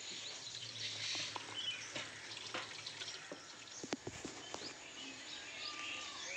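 Small birds chirping and twittering over a steady rural background hiss, with a few short clicks and knocks around the middle.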